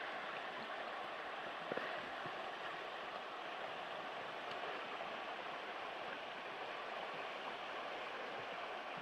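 Steady rush of a river flowing over stones, with one brief knock about two seconds in.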